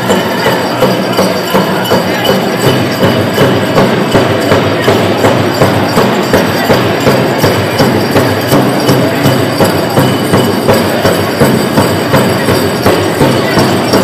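Powwow drum group playing: an even, steady drumbeat with singers' voices over it.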